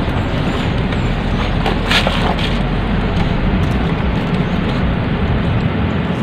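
Steady rushing wind buffeting the microphone, with a few faint clicks about two seconds in.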